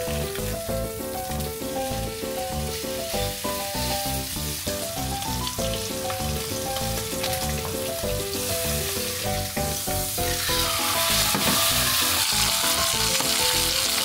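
Steak pan-searing with garlic and rosemary in a frying pan: a steady sizzle of hot fat, with spoon-and-pan stirring sounds as the juices are spooned over it. The sizzle grows much louder about ten seconds in. Background music with a steady beat plays throughout.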